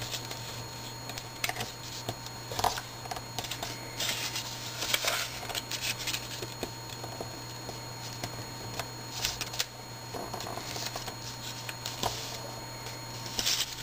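Paper being folded by hand, rustling and sliding on a cutting mat as the creases are pressed flat, in short scattered bursts. A steady low hum runs underneath.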